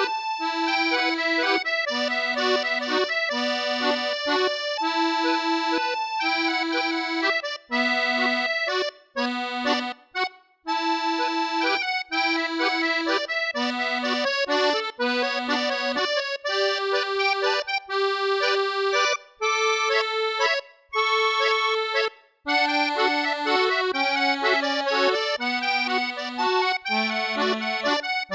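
Instrumental music: a slow melody of separate held notes over chords, with a few brief pauses between phrases.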